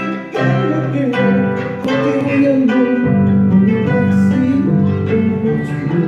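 Andean harp played solo: an instrumental passage of plucked melody over low bass notes, the strings ringing on between plucks.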